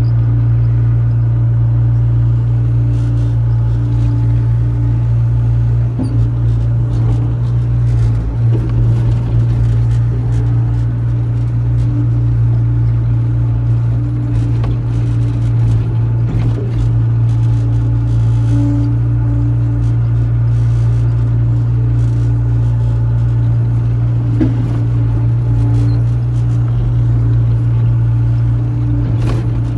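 Caterpillar excavator's diesel engine running steadily under load, heard from the operator's cab, with scattered clunks and knocks as the bucket digs and loads soil.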